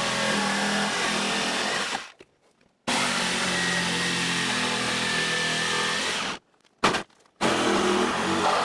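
Corded jigsaw cutting through a wooden board in two runs, stopping about two seconds in and again a little after six seconds. Then a cordless reciprocating saw takes over near the end with a short blip followed by a steady cut.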